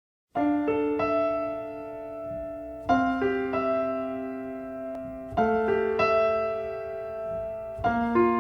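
Solo piano playing a slow ballad introduction. It starts about half a second in, with four chords about two and a half seconds apart, each followed by a couple of added notes and left to ring and fade.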